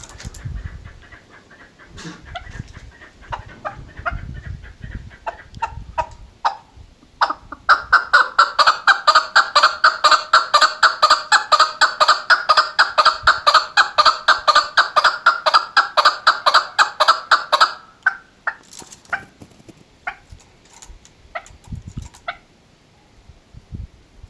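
Chukar partridge (chakor) calling. Scattered single notes at first, then from about seven seconds in a loud, fast, even run of repeated notes, about seven a second, lasting some ten seconds. Scattered notes return near the end.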